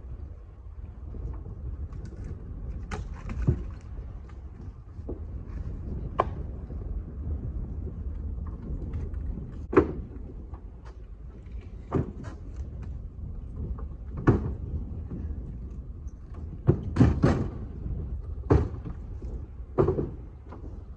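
Split firewood clunking as pieces are tossed down one after another: irregular sharp knocks, every second or few, with a quick cluster of them near the end, over a steady low rumble.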